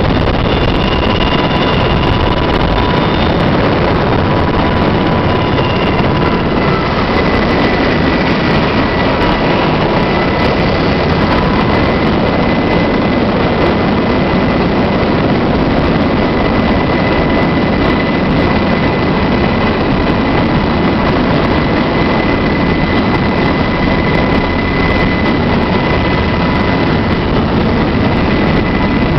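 UH-60 Black Hawk helicopter's rotor and turbine engines running loud and steady, heard from inside the cabin at the open door, with a constant high whine over the rotor noise.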